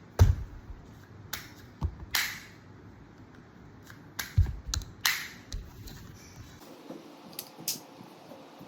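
A toy Karabiner 98k rifle being handled: about ten sharp clicks and clacks at irregular intervals, the loudest right at the start.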